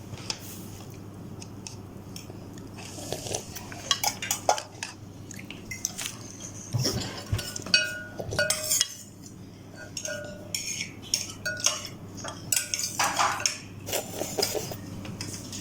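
Cutlery clinking and scraping against a bowl during a meal of instant noodles. Irregular clatter, with a few short ringing clinks about halfway through.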